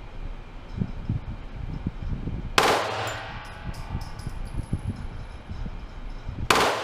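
Two very short bursts of gunfire from a pistol converted to fully automatic fire, about four seconds apart. Each cracks sharply and then rings off in a decaying echo; the bursts are short because the trigger is held only briefly.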